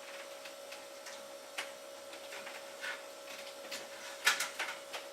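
Light clicks and taps of a hard drive and its plastic tool-less drive tray being handled and fitted into a PC case, with a few sharper clicks near the end. A faint steady hum runs underneath.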